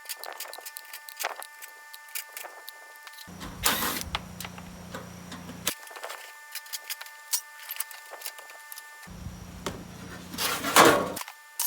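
Hand tools and loose metal parts clinking and clattering while an old air conditioner is taken apart for scrap: irregular clicks and rattles, loudest about eleven seconds in.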